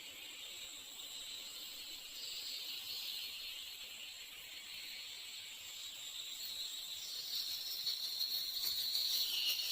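Insects chirring in a steady high hiss that grows slowly louder toward the end.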